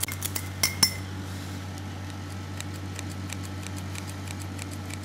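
Metal scissor blades clinking against a bowl of egg wash, a few sharp ringing clinks in the first second, followed by faint light ticks about three a second over a steady low hum.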